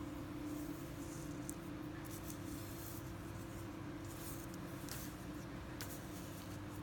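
A steady low hum, with faint scattered rustles and light ticks from fingers handling thin fishing line over paper while tying a knot.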